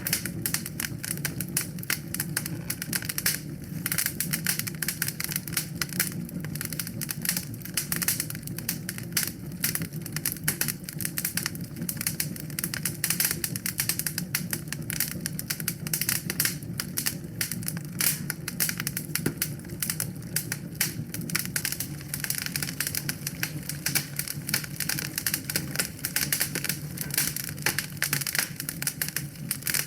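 Wood fire in a fireplace crackling, a dense, irregular stream of small pops and snaps over a steady low rumble.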